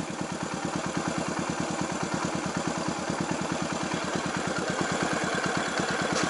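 Yamaha SR400's single-cylinder four-stroke engine idling, its exhaust note a steady, even thumping of about ten beats a second.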